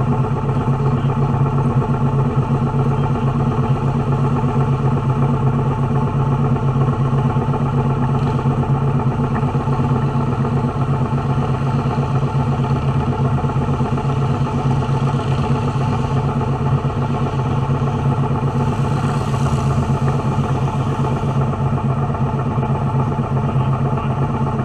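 Motorcycle engines idling steadily at a standstill, close to the microphone, with no revving.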